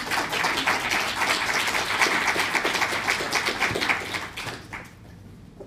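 Audience applause, many hands clapping, dying away over the last second or so.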